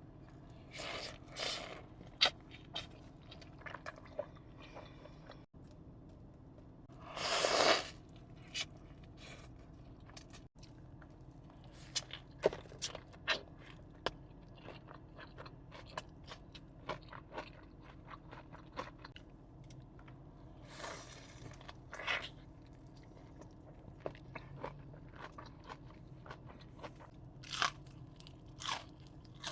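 Close-miked eating sounds: crunchy bites and chewing, a string of sharp irregular crunches. About seven seconds in comes one longer, louder noisy burst.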